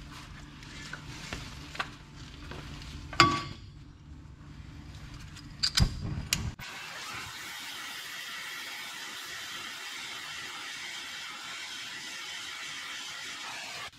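A few clanks and knocks, then from about six and a half seconds in the steady hiss of a gas torch flame heating a seized leaf spring shackle bolt red hot.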